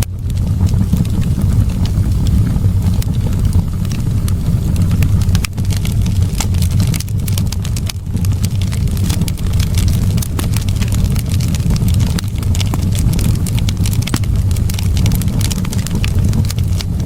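Wood fire burning in a fireplace: a steady low rush of flames with frequent, irregular sharp crackles and pops.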